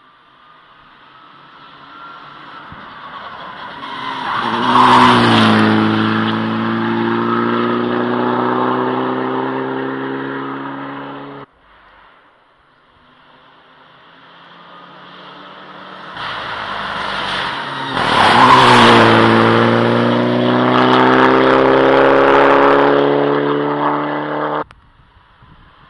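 Two rally cars passing one after the other at full throttle. Each engine builds up as it approaches, drops in pitch as it goes by, then climbs in pitch as it accelerates away, and each cuts off abruptly.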